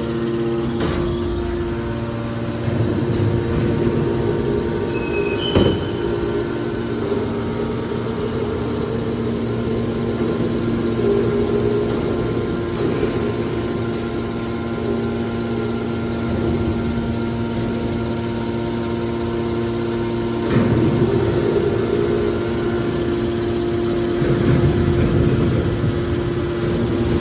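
Hydraulic scrap metal baler running, its pump motor giving a steady hum. Three louder spells of rough noise rise over the hum, and there is one sharp click early on.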